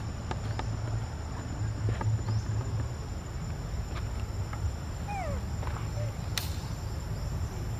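Outdoor ambience of insects droning steadily at a high pitch over a low rumble, with scattered small clicks. A few short falling chirps come about five seconds in, followed by a sharp click.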